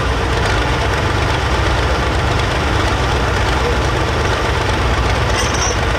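John Deere 4430 hot farm pulling tractor's diesel engine idling steadily.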